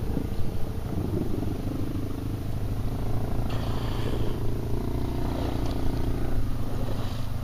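ATV engine running hard under load, pulling the quad through creek water and up a steep bank out of it.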